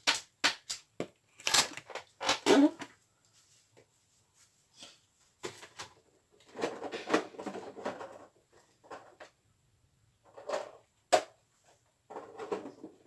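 Handling noise of objects being moved about: a run of sharp clicks and knocks in the first three seconds, then scattered rustling and rummaging, with one sharp click about eleven seconds in.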